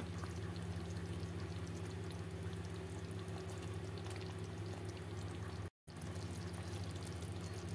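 Thick curry gravy with koftas simmering in a steel kadhai, bubbling faintly as a ladle moves through it, over a steady low hum. The sound cuts out for a moment about three-quarters of the way through.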